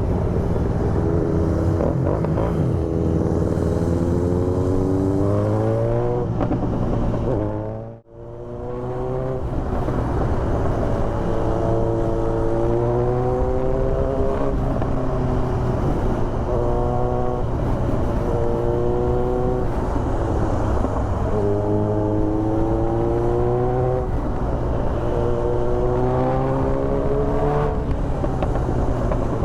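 Kawasaki Z900's inline-four with an Austin Racing exhaust accelerating through the gears: the engine note rises repeatedly and drops back at each upshift. The sound cuts out briefly about eight seconds in.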